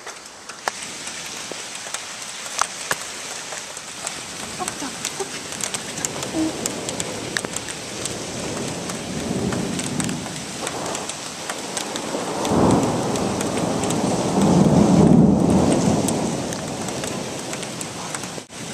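Heavy thunderstorm rain falling steadily, with many close drop ticks. Thunder rumbles around the middle, then a sharper clap about two-thirds in builds into a long, loud rolling rumble that fades away near the end.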